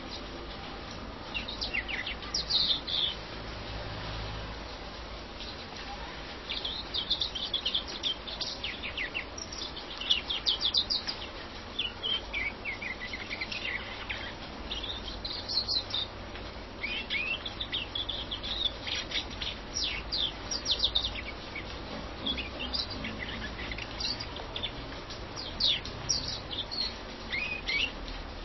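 European greenfinch singing: runs of quick twittering chirps and trills, broken by a pause of a few seconds early in the song.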